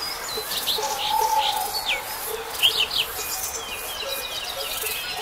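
Wild birds chirping and calling in a morning chorus. Short, high, sliding notes come in quick succession, the loudest pair a little past the middle, with one lower drawn-out note about a second in.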